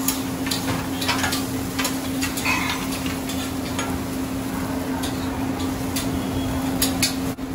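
Restaurant kitchen clatter: steel utensils and dishes clinking and scraping in quick scattered strokes, with food sizzling and a steady machine hum underneath.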